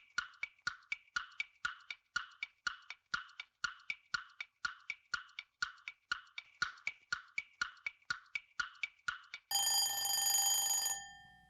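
Quiz countdown timer ticking, about four clicks a second. About nine and a half seconds in, the ticking stops and a ringing alarm tone sounds for about a second and a half, signalling that the answer time is up.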